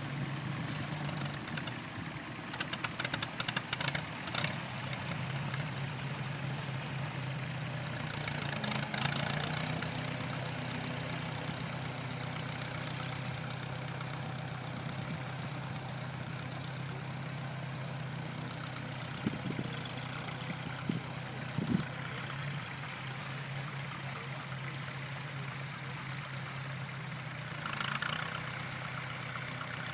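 Standard Fordson tractor's four-cylinder engine running steadily, with a spell of rapid clicking a few seconds in and brief swells of noise around nine seconds in and near the end.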